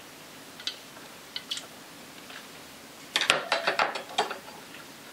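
A metal fork and knife clicking lightly a few times, then a quick run of metallic clinks and clatter about three seconds in as they are laid down on a kitchen counter.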